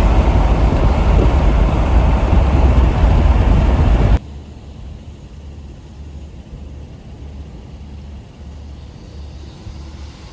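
Loud rushing noise that cuts off suddenly about four seconds in, giving way to a quieter, steady low rumble of a vehicle on the road.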